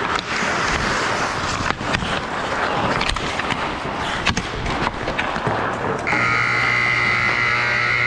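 Game play noise of scraping and clattering with several sharp knocks, then a steady electric buzzer sounding about six seconds in and holding for about two seconds, typical of a game-clock horn.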